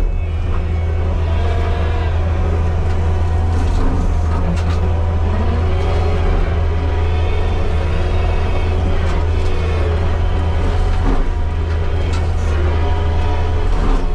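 Heavy diesel engine running steadily: a strong low drone, with fainter whines rising and falling above it.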